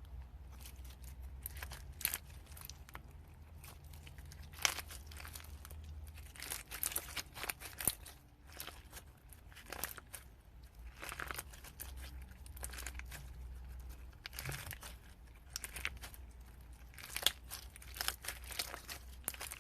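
Hands squishing and stretching slime, giving irregular clusters of small crackling pops and crinkles.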